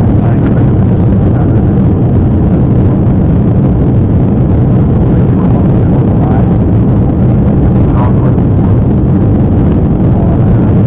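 Steady low drone of jet engines and rushing air heard inside an airliner cabin during the climb after takeoff.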